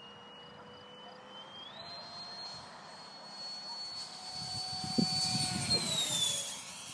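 Electric ducted-fan whine of an RC FlyFly Mirage 2000 model jet. The pitch steps up about two seconds in as the throttle is opened, then grows louder as the model flies close by. Near the end the pitch glides down as it passes, with a low rumble and a brief knock at the loudest point.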